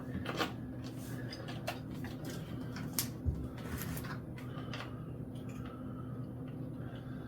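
Faint clicks and light knocks of a key being worked in the lock of an electric bike's frame-mounted battery, with a dull thump a little over three seconds in, over a steady low hum.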